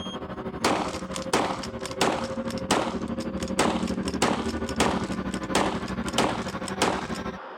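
Ten shots fired in rapid succession from a Henry lever-action repeating rifle, evenly spaced at about one shot every two-thirds of a second.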